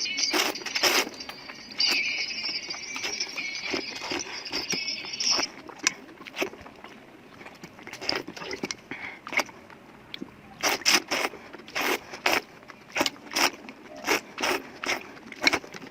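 Close-miked eating of fried noodles: a long hissing slurp over the first few seconds, then a quieter stretch. Near the end comes a quick run of sharp, crunchy chewing clicks.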